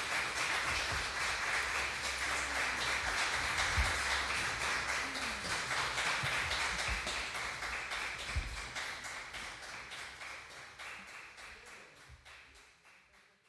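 Audience applauding, a dense even clapping that fades out over the last few seconds.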